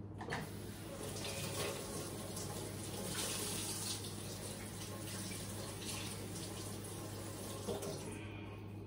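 Kitchen tap running into a stainless steel sink as fish is rinsed under it; the water comes on just after the start and shuts off about eight seconds in.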